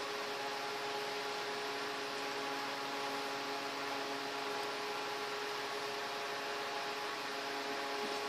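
Steady room tone: an even hiss with a faint, steady hum underneath.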